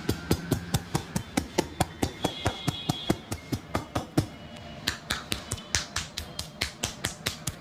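A massage done with the hands: rapid, rhythmic strikes, about five a second, with a short pause a little after four seconds.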